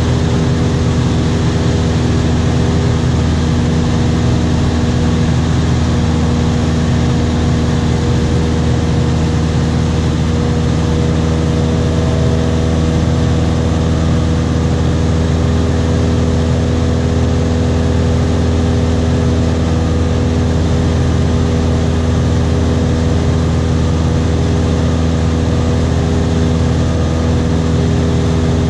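Small high-wing plane's engine and propeller heard from inside the cabin in level flight: a loud, unchanging drone with several steady tones over a rumble and hiss.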